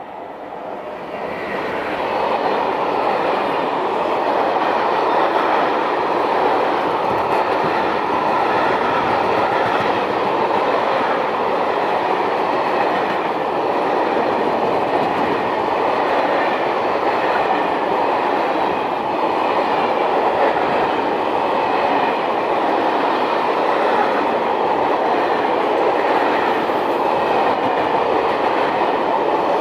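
Freight train passing close by: the steady noise of its wagons' wheels running on the rails swells over the first couple of seconds, then holds.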